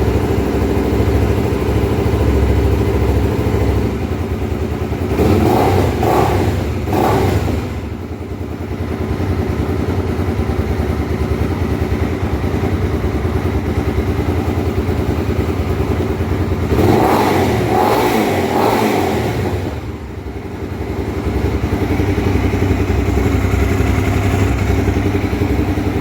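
Honda Twister 250 single-cylinder four-stroke engine running at idle, blipped up in revs twice, about 5 seconds and about 17 seconds in, each time dropping back to idle.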